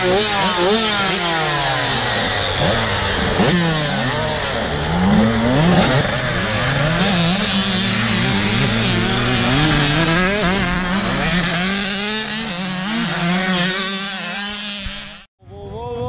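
Several dirt bike and pit bike engines idling and revving at once, their pitch repeatedly rising and falling over a steady low idle. The sound cuts out for an instant near the end.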